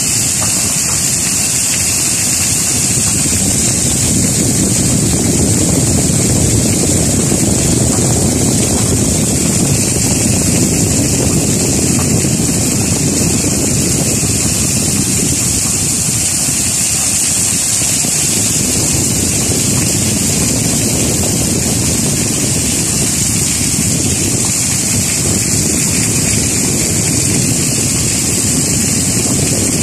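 Heavy tropical rain pouring down in a loud, steady hiss.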